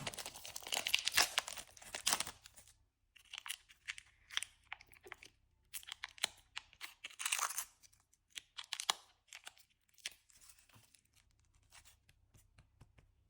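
Packaging being torn open and handled by hand: a dense stretch of tearing and rustling for the first two seconds or so, then scattered crinkles, rustles and small clicks that thin out toward the end.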